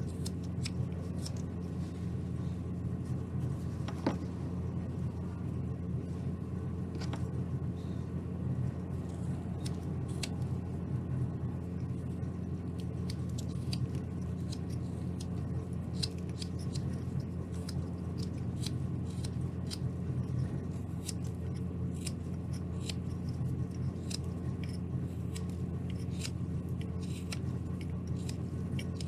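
Carving knife paring thin shavings from a basswood ball: a run of short, crisp, irregular cutting ticks. A steady low hum sits underneath.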